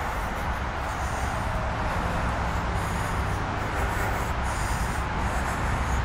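Steady drone of road traffic, a continuous hiss of tyre noise over a low rumble with no distinct passes.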